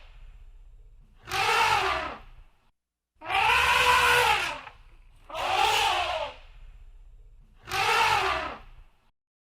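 Elephant trumpeting: four loud, pitched calls of about a second each, every one rising and then falling in pitch, with short pauses between.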